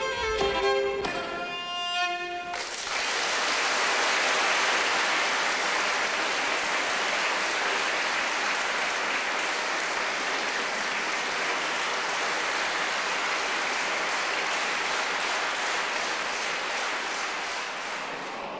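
A solo fiddle tune ends about two and a half seconds in, followed by a long, steady round of audience applause that fades near the end.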